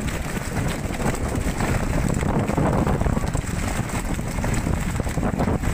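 Wind buffeting the microphone on the open deck of a fishing boat at sea, over a steady low rumble of the boat and water.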